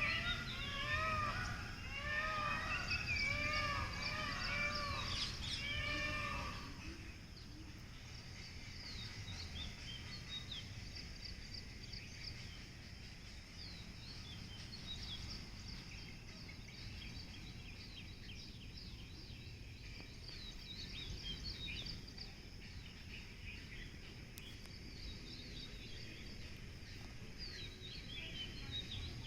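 Birds calling outdoors. For the first seven seconds or so a louder, quickly repeated call of arched notes stands out; after it stops, only faint high chirps from more distant birds remain over a low steady rumble.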